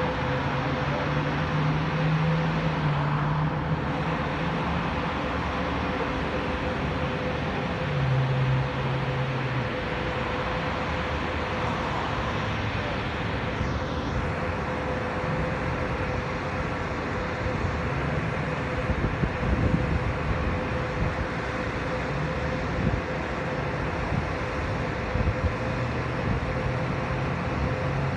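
Steady road traffic noise with a constant mid-pitched hum and a low engine drone that comes and goes, with a few brief low bumps about two-thirds of the way in.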